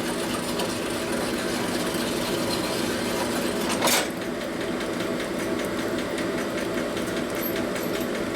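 Electric drill spinning a coarse stone hone inside a metal bore, running steadily, with one brief louder scrape about four seconds in.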